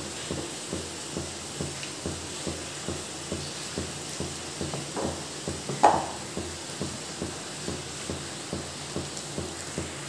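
A hand rubbing and squeezing a crumbly pakoda mixture of gram flour, onions and drumstick leaves in a bowl: soft, rhythmic rustling strokes about three a second, with one louder rustle about six seconds in.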